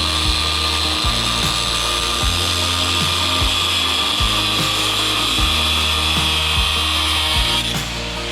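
A power tool running steadily with a high whine, over background music with a steady beat.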